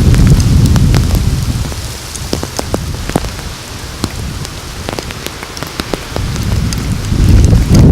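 Raindrops striking a surface as many separate sharp ticks. Gusts of wind buffet the microphone at the start and again from near the end, with a calmer stretch in between.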